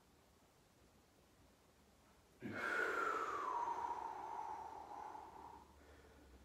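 A man's long, forceful exhale through pursed lips, part of deep breathing to cope with ice-cold water. It starts suddenly about two and a half seconds in and lasts about three seconds, with a faint whistle that falls in pitch and then levels off.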